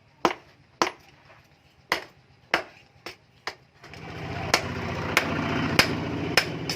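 Blacksmith's hammer striking the steel of an axe head on an anvil, about ten sharp blows at a steady pace of roughly one every half second. About four seconds in, a steady motor-like drone starts up beneath the blows.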